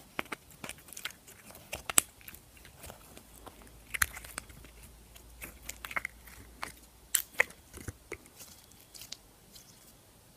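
Clear slime being pressed, squeezed and pulled from a small plastic tub by fingers, making irregular sticky clicks and pops, the loudest about two, four and seven seconds in.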